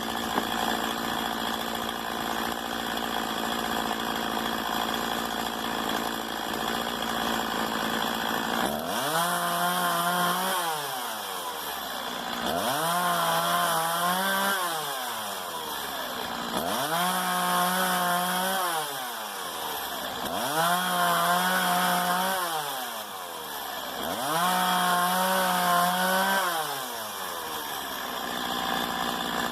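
Stihl MS 170 two-stroke chainsaw idling steadily, then revved up five times in a regular rhythm, each time held high for about two seconds before dropping back toward idle.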